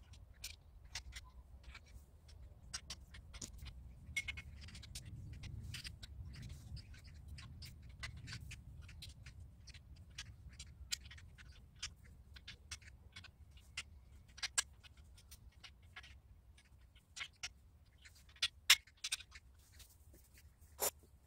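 Small metal clicks, taps and scratches of angle-pipe greenhouse frame parts and connectors being handled and fitted together, with a few sharper knocks in the last few seconds, over a steady low rumble.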